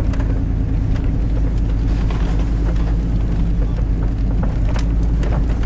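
Truck engine running steadily under load while crawling up a rocky off-road track, with occasional knocks and rattles from the bumping, most of them near the end.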